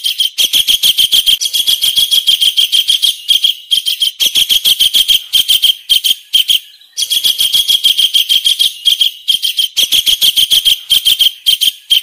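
Kingfisher calling in a rapid run of shrill, even notes, several a second, with a short break about seven seconds in.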